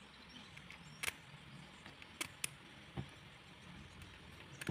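Faint handling of small metal parts: a few sharp clicks and taps as a small locking bolt is fitted by hand into the mini drill's gearbox housing.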